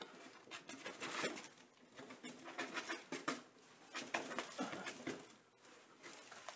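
Cardboard shoebox scraping and bumping on a tile floor while a cat paws and scrabbles underneath it: a run of irregular scratchy rustles and knocks.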